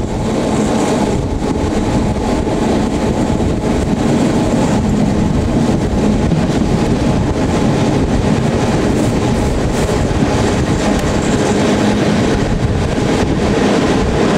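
Historic passenger train running along the line: a steady rumble of wheels on rails and running gear, with a low hum and faint scattered rail clicks.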